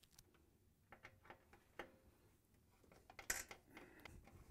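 Faint scattered clicks and light metallic ticks of a Phillips screwdriver turning a screw out of the washer's sheet-metal cabinet, a little louder for a moment about three seconds in.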